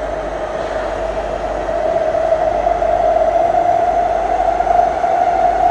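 Singapore MRT train running in motion, heard from inside the carriage: steady rolling rumble under a strong whine that rises slightly in pitch and gets louder.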